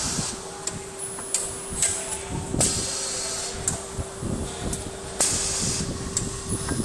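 CNC automatic tool changer running on its AC drive: a steady motor hum with mechanical clicks and knocks from the changer mechanism, and short hissing bursts at the start and twice more, about two and a half seconds apart.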